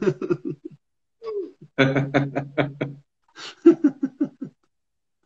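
Two men laughing in three short bursts of chuckling, the middle one the longest.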